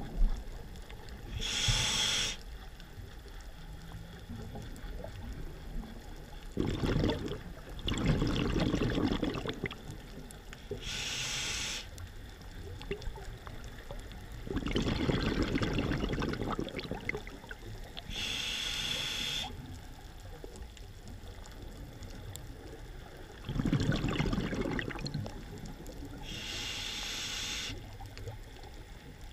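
Scuba diver breathing through a regulator underwater, slow and regular: a short hissing inhale through the demand valve about every eight seconds, each followed a few seconds later by a longer rush of exhaled bubbles. Four inhales and three bubbling exhales.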